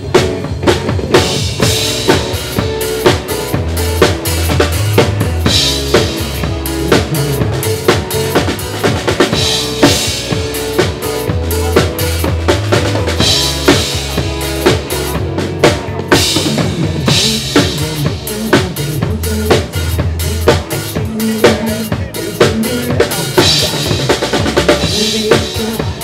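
Acoustic drum kit played as a drum cover over a pop backing track: a steady kick, snare and cymbal groove over bass and pitched music. The drums come in at the start.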